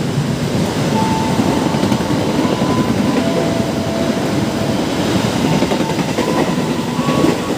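Train running past on the rails: a loud, steady rumble of wheels and cars, with faint thin whines coming and going.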